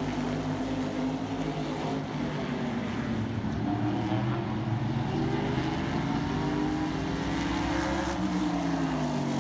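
NASCAR Modified race cars' V8 engines running hard around a short oval, heard from trackside. The engine pitch climbs as they come through the turn and falls near the end as they go by.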